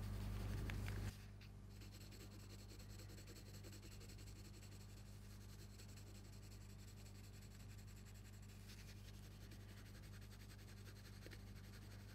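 Near silence: faint room tone with a low steady electrical hum. A louder hissing background drops away abruptly about a second in.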